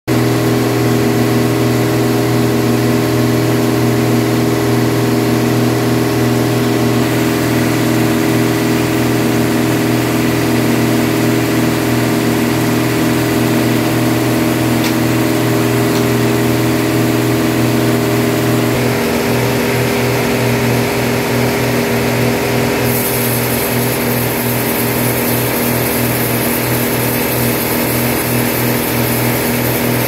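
Band sawmill's machinery running steadily with a continuous engine-like hum. The hum changes character about two-thirds of the way through, and a high hiss joins it near the end.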